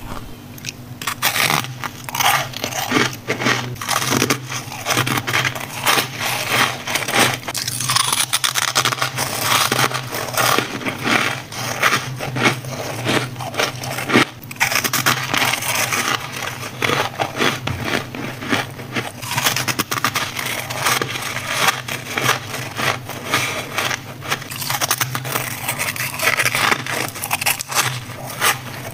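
Thick, flaky freezer frost in a clear tub being scraped and broken up, a dense, continuous run of crackling, crunching scrapes over a steady low hum.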